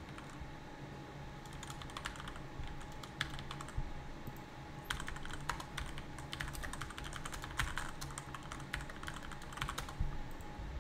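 Typing on a computer keyboard: irregular runs of quick keystrokes over a faint steady hum.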